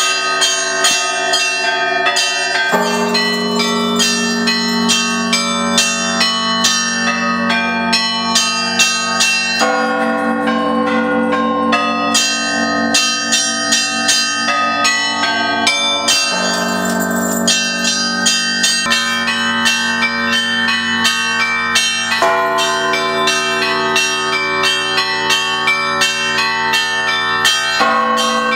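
Orthodox cathedral bells pealing: small high bells struck in a rapid run over deeper bells that sound every few seconds.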